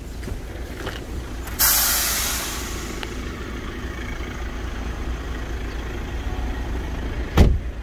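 A steady low outdoor rumble, with a sudden loud hiss about a second and a half in that fades away over about a second, and a dull thump near the end.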